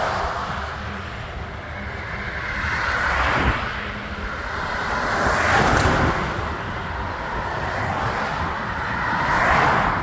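Road traffic noise: several vehicles passing one after another, each one swelling up and fading away.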